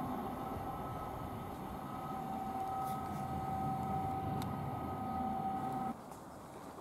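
Class 321 electric multiple unit running along the track: a steady rumble with a steady two-note whine over it, cut off abruptly about six seconds in.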